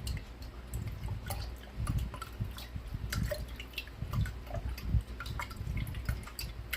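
Glitter tapped and shaken from its container into the water of a large snow globe: scattered small ticks and drip-like plinks, with a few soft knocks.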